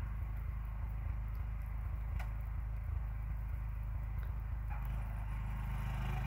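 John Deere garden tractor's engine running steadily under load, a low even hum, with a few faint clicks.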